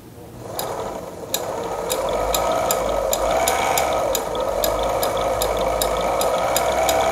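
Sailrite LSZ-1 Ultrafeed portable walking foot sewing machine stitching through two thin layers of vinyl at a longer stitch length. Its variable-speed motor whines up about half a second in and wavers in pitch, with a steady ticking of the needle and feed mechanism, about three stitches a second.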